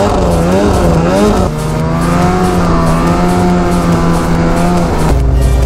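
Ski-Doo MXZ 700 snowmobile's two-stroke engine running under throttle while riding, its pitch rising and falling for the first second and a half, then holding steady, with a sudden change in the sound near the end.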